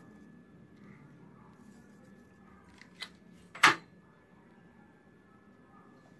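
Salt being added to raw prawns in a bowl: two sharp clicks about three seconds in, the second much louder, over a faint steady hum.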